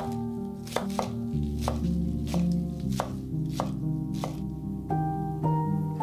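Chef's knife chopping spring onions on a bamboo cutting board, the blade knocking on the wood in a steady rhythm of about three strikes a second.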